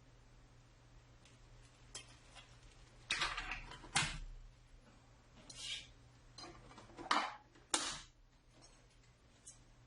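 Irregular clicks and knocks of a Bell and Howell 16mm sound film projector's controls and mechanism being handled, over a low steady hum. The loudest knocks fall about four seconds in and around seven to eight seconds in.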